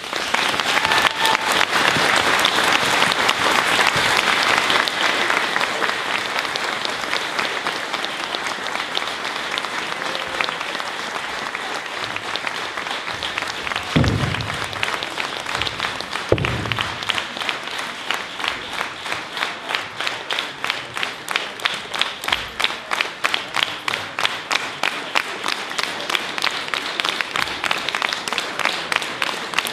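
Audience applause, loudest at the start, that settles into unison rhythmic clapping at about three claps a second a little past halfway. Two dull thumps come about halfway through, a couple of seconds apart.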